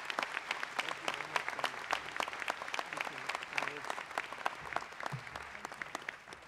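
Audience applauding: many hands clapping in a dense, irregular patter that thins out and fades near the end.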